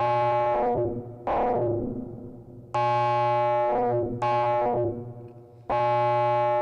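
Buchla Music Easel audio feedback, its output fed back into its own input, opened and closed by a low pass gate driven by two out-of-sync cycling envelopes. Five rich, many-pitched tones that start suddenly at uneven intervals, some held for about a second before dying away.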